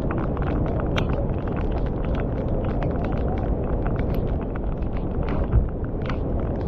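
Mountain stream in flood, muddy water rushing over boulders: a loud, steady roar, with many small sharp ticks scattered through it.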